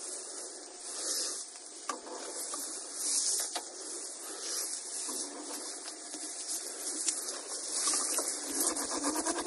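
Rustling and hissing of a small motorcycle rolling along a trail covered in dry leaves and grass, with little engine sound. Near the end a rapid, even run of engine firing pulses comes in.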